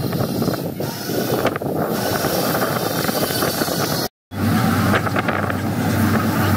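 Wind buffeting the microphone for about four seconds. Then, after a brief cut, a boat engine's steady low drone with wind over it.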